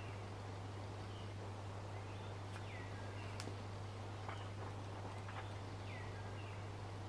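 Steady low hum under a hiss, with a few faint short falling chirps and a couple of soft clicks.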